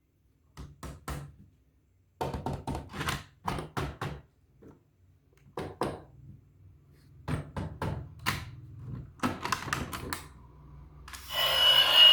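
Plastic toys and their packaging being handled: a run of irregular clicks and knocks. About a second before the end, a louder continuous sound with a high held tone starts.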